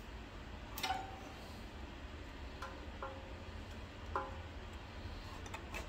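A few light metal clicks, some with a brief ring, spread unevenly over several seconds: small parts and fasteners being handled during hand work on a lawn tractor's engine. A low steady hum lies underneath.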